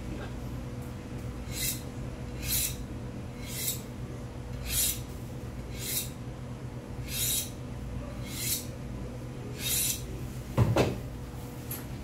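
A knife blade drawn in about eight short scraping strokes, roughly one a second, then a single knock about ten and a half seconds in. A steady machine hum runs underneath.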